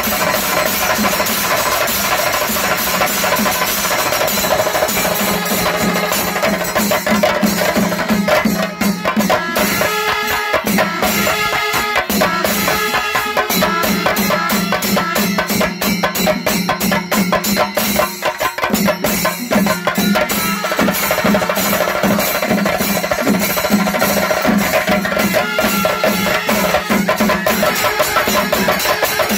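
Kerala temple-festival ensemble playing: curved brass kombu horns blowing over a dense, fast, unbroken beat of drums and metal percussion.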